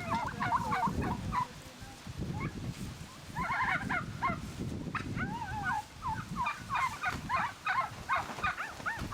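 Several turkeys calling: many short, wavering, overlapping calls, with a lull about two seconds in, over a low rumble.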